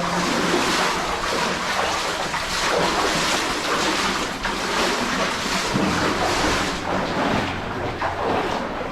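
Splashing and sloshing water from wading through a flooded mine adit, with irregular soft surges.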